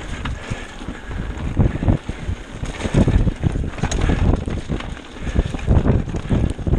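Mountain bike descending a rough dirt forest trail at speed: wind rushing over the microphone, tyres rumbling and the bike rattling and knocking over rocks and roots in quick succession, easing briefly about five seconds in.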